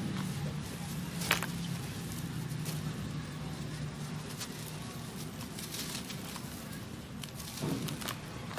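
Hands squeezing and crumbling dry, dusty baked clay dirt in a steel bowl: a steady gritty crunching and rustling, broken by a few sharper cracks as lumps break, the loudest about a second in.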